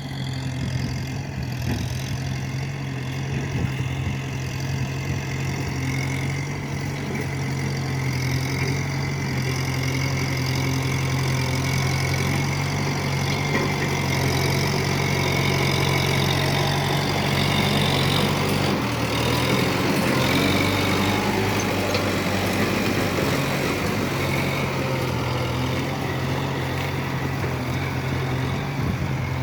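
Kubota tractor's diesel engine running steadily under load while ploughing. The engine note briefly changes about two-thirds of the way through, then settles back.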